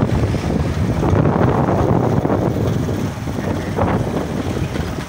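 Wind rushing over the microphone on a moving motorcycle, a loud, steady rush with traffic and road noise beneath it.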